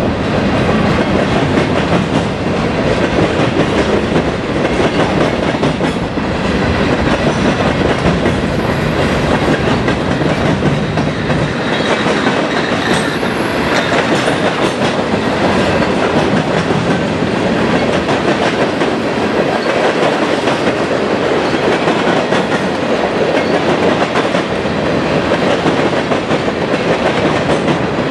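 Freight train of mixed cars (boxcars, covered hoppers, tank cars) rolling past at speed: a steady, loud noise of steel wheels on rail.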